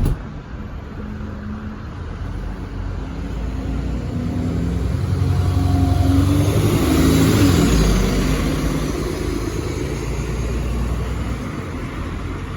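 Diesel engine of an ADL Enviro400 double-decker bus accelerating, rising in pitch and getting louder up to about eight seconds in, then easing back.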